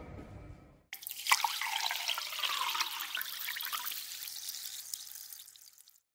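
Liquid pouring and fizzing after a sharp click, fading out near the end.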